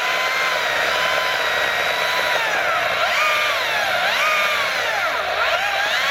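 STIHL battery-powered chainsaw with a 16-inch bar cutting through a log, its electric motor whining steadily. In the second half the pitch sags and recovers several times as the chain bites into the wood under load.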